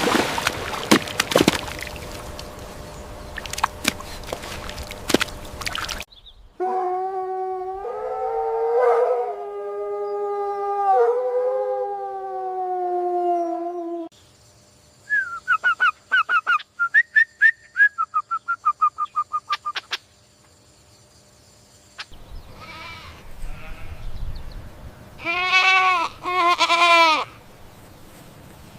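Farm animal calls: a long drawn-out bleat lasting several seconds, then a run of quick, high pulsed calls, and two short wavering bleats near the end. The first few seconds hold clicks and outdoor noise.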